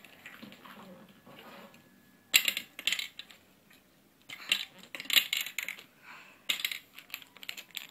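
Small hard candy balls dropped into the clear plastic globe of a candy ball dispenser, clicking and rattling against the plastic and each other in three bursts.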